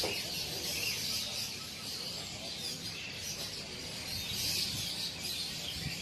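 Many small caged songbirds chirping together in a steady, overlapping chorus.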